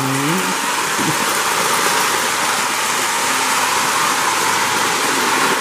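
O-gauge model steam locomotive and its train running on three-rail track, giving a steady rushing noise.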